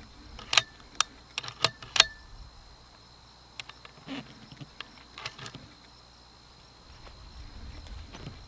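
Bolt of a Browning X-Bolt rifle being worked by hand: five sharp metallic clicks in the first two seconds as a cartridge is chambered and the bolt closed, then a few softer clicks and taps. A steady high insect trill runs underneath.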